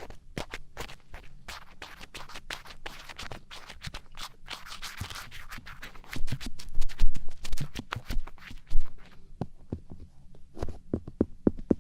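Ear pick scratching and scraping close up against a microphone's ear, in a dense run of small clicks and scrapes. It gets louder with deeper rubbing thuds between about six and nine seconds in.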